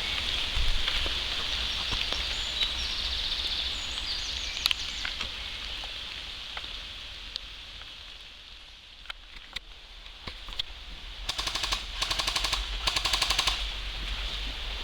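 Three short full-auto bursts from an airsoft gun near the end, each a rapid rattle of shots lasting about half a second, over a steady high hiss with scattered light clicks.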